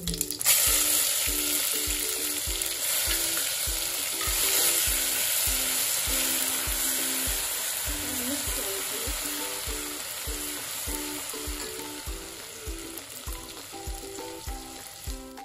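Ginger-garlic paste frying in hot oil with mustard and cumin seeds in an aluminium pot: a loud sizzle bursts up about half a second in and slowly dies down as the paste is stirred with a metal ladle.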